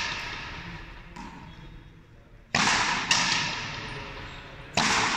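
Frontenis rally: the rubber ball cracks off a racket and then off the front wall, in pairs about half a second apart, three sharp hits in all, each ringing on in the echo of the large fronton hall.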